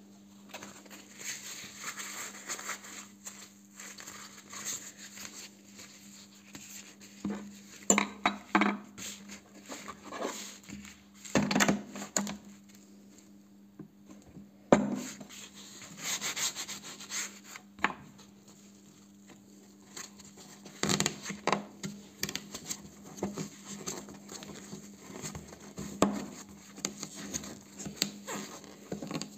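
A cloth wrap being rubbed, smoothed and rolled up by hand on a tabletop, with irregular knocks and clatter as things are handled against the table.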